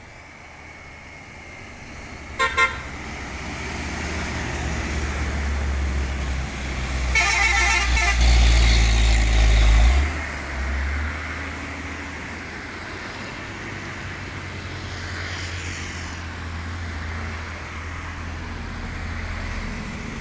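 Truck telolet horn giving two short toots about two seconds in, then a longer multi-note blast around seven seconds in. Under it runs the heavy low rumble of a diesel truck engine, which swells, drops off sharply about ten seconds in, and settles to a steady drone.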